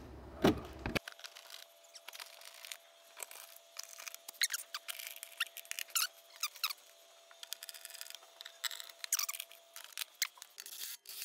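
Short scattered squeaks and creaks of a plastic front splash shield rubbing against the underbody as it is pushed into place and fastened, with a faint steady hum under it.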